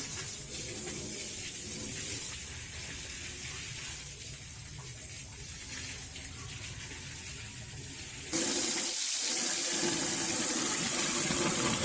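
Water from a garden hose, its end pinched to a fan spray, hissing and splashing against a tractor's tyres and body. About eight seconds in, the spray suddenly grows louder and hissier.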